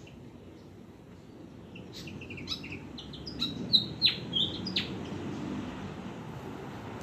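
Oriental magpie-robin singing: a run of clear whistled notes and quick downward-sweeping phrases, starting about two seconds in and ending about five seconds in.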